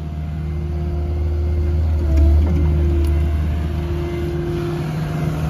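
JCB 8055CTS mini excavator's diesel engine running steadily, swelling louder for a moment about two seconds in, with a whine over it that comes and goes.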